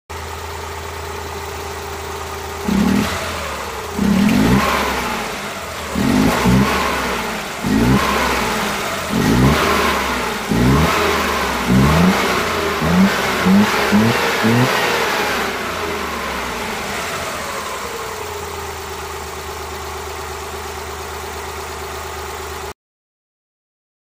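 Suzuki Multicab's F6A three-cylinder engine idling, then blipped to full throttle about a dozen times in quick succession, each rev rising and falling straight back, before settling to a steady idle again; the sound cuts off suddenly near the end. The engine has a random misfire, which quick full-throttle revs smooth over.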